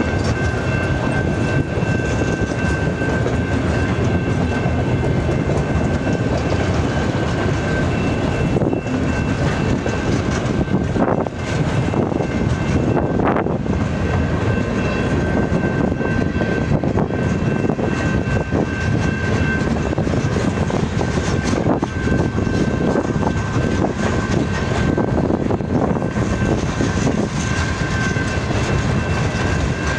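Freight cars of a long manifest train rolling past at steady speed: a continuous rumble of steel wheels on rail, with irregular knocks and clicks, and a thin steady high tone underneath.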